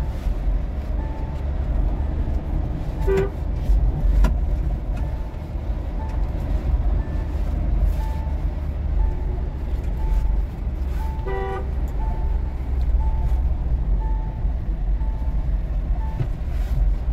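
Mahindra Thar diesel driving at highway speed, heard from inside the cabin: a steady engine and road rumble, with a faint short beep about once a second. Two short horn toots sound, about three seconds in and again about eleven seconds in.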